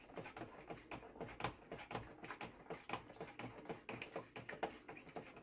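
Spatula stirring a cornstarch-and-warm-water mixture in a plastic pot, faintly knocking and scraping against the sides in quick irregular taps, several a second.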